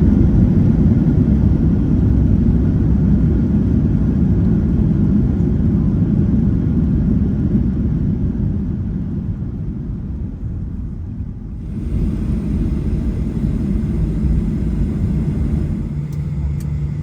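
Low engine rumble of a Boeing 737-800 heard from the main cabin, easing off over about ten seconds. About twelve seconds in it gives way abruptly to a steadier engine hum with a faint high whine.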